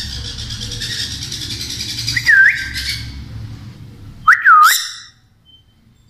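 Sun conure calling: about three seconds of harsh, rapid squawking, a dipping whistled call about two seconds in, then two loud, shrill dipping calls about four seconds in.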